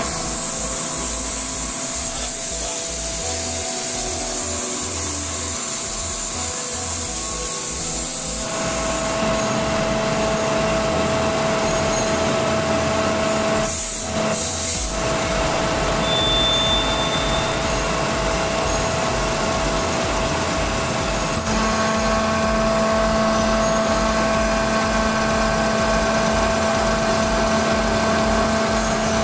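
Airman screw air compressor running steadily and cycling between unload and load. A strong hiss of air while it runs unloaded stops about eight seconds in as it goes on load, and its tone shifts again a little after twenty seconds.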